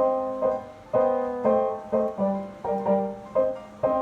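Roland RD-300NX digital stage piano playing its acoustic piano sound: chords struck in quick succession, about two a second, each with a sharp attack that then dies away, showing off the instrument's attack and fast repetition.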